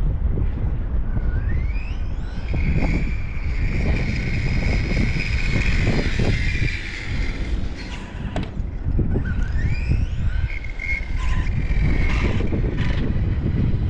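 Electric RC rally car's motor and drivetrain whining as it makes a full-throttle speed run on a 2S battery: the whine rises in pitch as the car accelerates and holds high and steady at top speed, twice. Heavy wind rumble on the microphone throughout.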